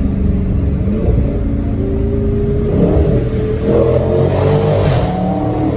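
2020 Dodge Charger Scat Pack's 392 (6.4-litre) HEMI V8 accelerating hard, its engine pitch climbing about halfway through.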